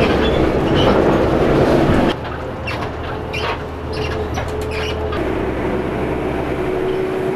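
Ride noise inside a moving bus: engine and road rumble with rattling clicks and a steady hum. The noise drops abruptly about two seconds in.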